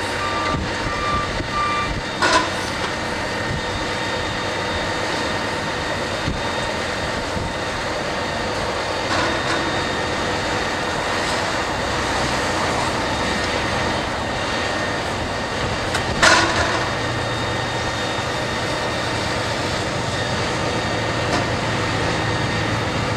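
Fire engines running at the scene with a steady noise. A reversing alarm beeps evenly for the first two seconds, and there are two short sharp bursts, one about two seconds in and one about sixteen seconds in.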